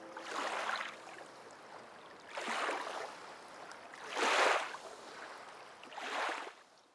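Kayak paddle strokes in water: four splashes about two seconds apart, the third the loudest.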